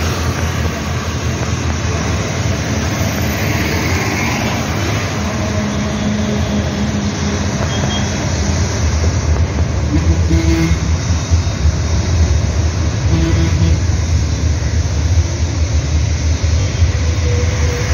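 Road traffic passing close by: motorbike and bus engines over a steady low rumble.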